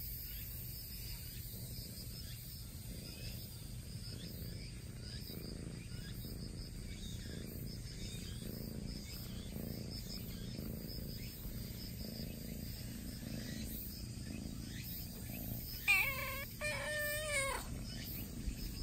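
A ginger-and-white kitten meowing twice near the end, a short call and then a longer, wavering one. Insects chirr steadily in the background.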